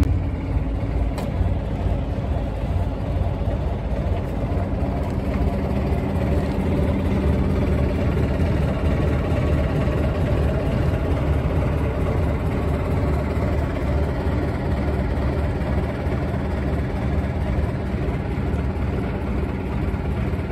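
Boat engine idling steadily, an even low hum with no change in speed.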